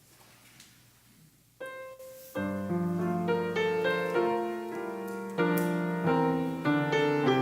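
Piano playing slow, full chords: it comes in with a single note about a second and a half in, and the full chords start a second later.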